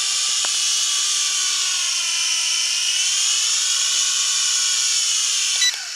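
W606-5 quadcopter's motors and propellers whining in a steady hover as it descends in an automatic landing, the pitch sagging and rising again. Near the end a short knock as it touches down, and the whine drops much quieter with the blades still spinning.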